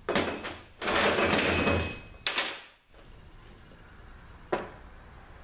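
Automatic-transmission parts handled on a workbench: two long sliding scrapes, then a sharp knock, and a single click near the end.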